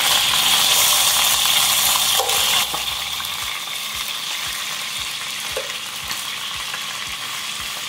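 Chicken leg and thigh pieces sizzling in hot oil in a large pan as they are turned with metal tongs. The sizzle is louder for the first two and a half seconds, then drops a little and runs on steadily.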